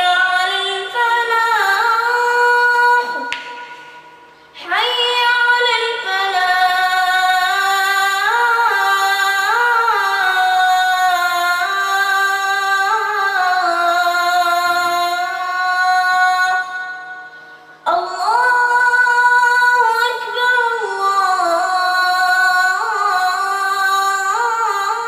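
A child's voice reciting the Quran in melodic tajweed style: long held notes with ornamented pitch turns, in phrases broken by a breath pause about four seconds in and another about seventeen seconds in.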